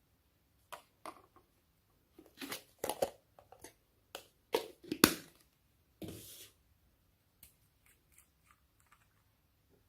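Irregular clicks, pops and squelches of homemade slime being worked by hand, busiest in the middle, with a short rustle about six seconds in and a few faint ticks near the end.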